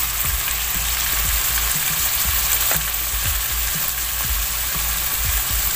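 Beef cubes and onion frying in hot oil in a nonstick pan: a steady hissing sizzle with a few faint scattered pops, as a plastic spatula stirs spice powder through the meat.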